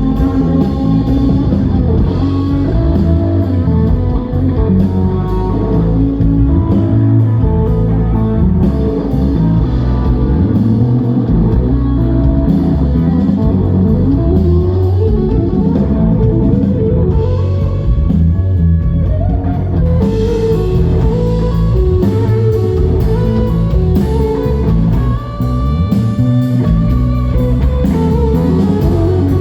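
Live blues-rock band playing an instrumental passage with no vocals: electric guitar leading over bass, with a steady beat.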